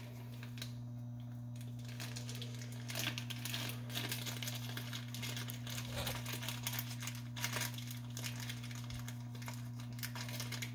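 Steady low electrical hum from the High Speed machine's sound system, with irregular crinkling and rustling handling noises over it.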